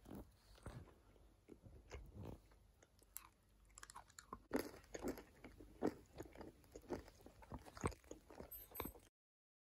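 A person chewing and crunching something hard close to the microphone, with irregular crunches that get louder and closer together about halfway through; the sound cuts off suddenly just before the end.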